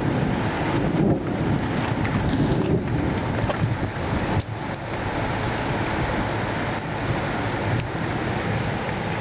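Thunderstorm building: a steady wash of wind and rain with a low rumble of thunder in the first four seconds, easing after a brief dip.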